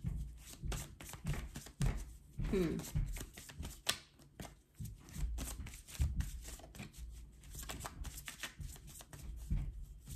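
A deck of cards being shuffled by hand: a long run of quick, irregular papery clicks.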